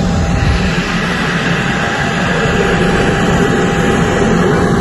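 Aircraft engine running: a loud, steady rush of noise with a faint steady whine.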